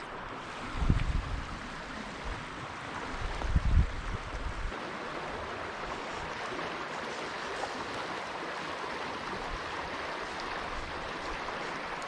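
Trout stream water running steadily, with two short low bumps about one and three and a half seconds in.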